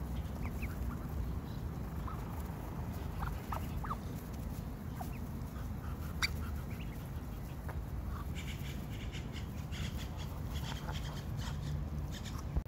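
Mallard duckling peeping: short, high, rising peeps scattered through, over a steady low rumble. A stretch of rapid faint ticking comes in during the second half.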